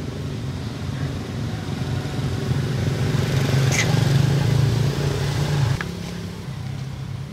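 A motor vehicle engine running steadily nearby, growing louder over the first five seconds and then dropping back. A short high chirp comes about four seconds in.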